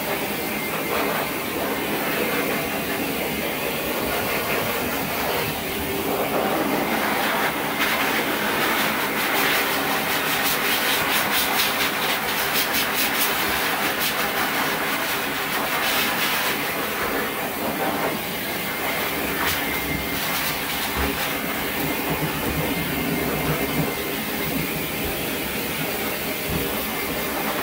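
Dog grooming blow dryer running steadily, a loud rush of air as it is worked through a small dog's damp coat, the level wavering a little as the airflow moves.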